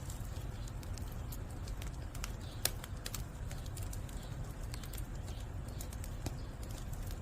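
Firewood burning under a cauldron, crackling with scattered sharp pops and snaps over a steady low rumble, one pop louder than the rest about two and a half seconds in.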